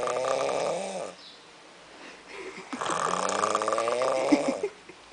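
A man snoring in long, pitched snores: one trails off about a second in, and another runs from about two and a half seconds until shortly before the end.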